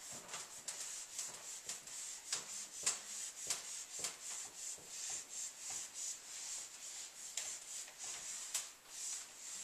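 Whiteboard eraser wiping across a whiteboard in quick repeated strokes, about two a second, each a dry, hissy rub.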